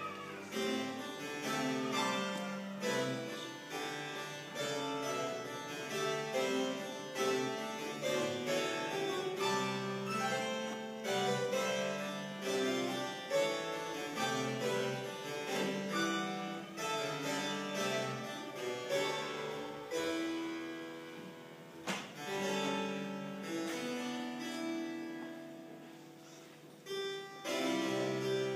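Solo harpsichord playing a contemporary piece: a busy stream of plucked notes and chords. About two-thirds of the way through it thins out and fades down, then a loud chord sets the music going again near the end.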